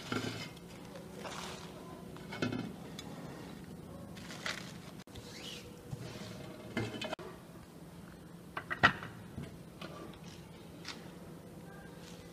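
Dishes and utensils being handled: scattered clinks and knocks, a few ringing briefly, the sharpest about three-quarters of the way through, over a steady low hum.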